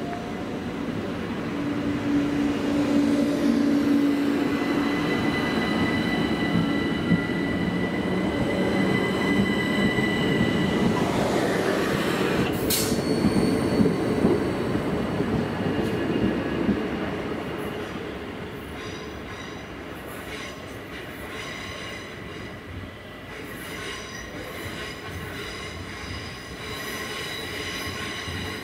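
Southern electric multiple-unit passenger train running through the station, loudest for the first half, with steady high-pitched wheel squeal. There is a sharp clank about 13 seconds in, and the sound then drops to a quieter run with light wheel clicks.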